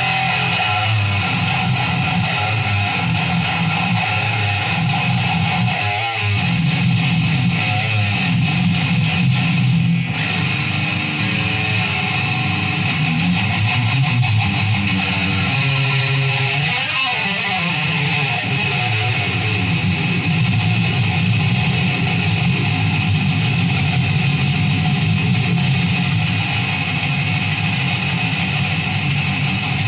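Guitar music playing without a break.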